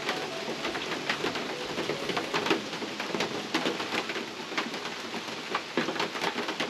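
Rain falling on the roof of a hunting box blind: a steady hiss with many separate sharp drop strikes scattered through it.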